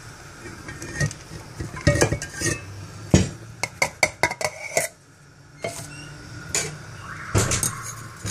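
Metal cooking vessels clinking and knocking as a brass pot and steel bowls are handled and set down while the rice water is drained off through a cloth. Near the end a metal spoon scrapes and taps in the brass pot of drained rice. The knocks come irregularly, some with a short metallic ring.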